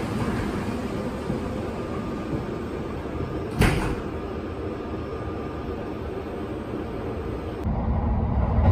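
Kintetsu 30000 series Vista EX train's folding passenger door closing, shutting with a single thump about three and a half seconds in, over the steady hum of the stopped train. About a second before the end, the train is heard running, with a louder low rumble.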